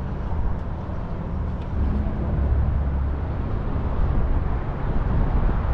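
Low, steady rumble of a vehicle engine running, with most of its weight in the bass and a little louder in the second half.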